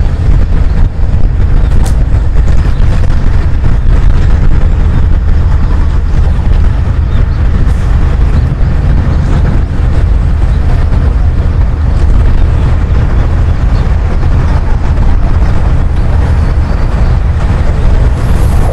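Loud, steady low rumble of wind buffeting the microphone, with no distinct engine note.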